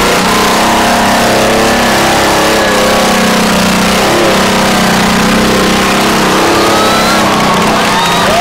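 Off-road jeep's engine held at high revs under load as it climbs a steep, muddy hill, the note steady with a slight waver. Near the end, spectators start shouting and whooping.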